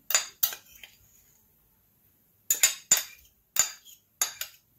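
Metal spoon clinking against a divided serving dish and mixing bowl while scooping dry ingredients: two clinks at the start, then after a pause of over a second, a quick run of clinks.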